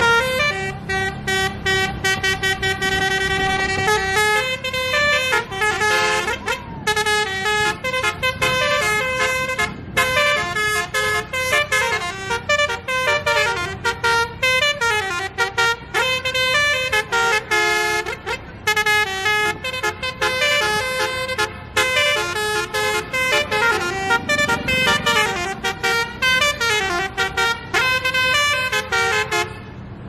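Basuri telolet multi-tone air horn on an Adiputro Jetbus 5 tour bus playing a long tune. It holds a few steady notes at first, then plays quick-changing melodic runs, over the low rumble of the bus's engine. The tune cuts off abruptly right at the end.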